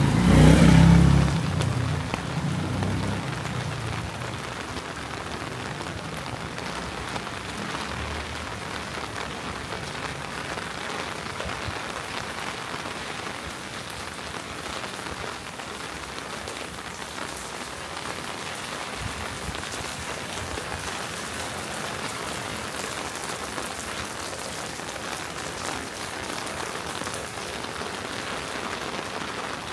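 Steady rain falling, an even hiss. A loud low rumble at the start fades within the first few seconds.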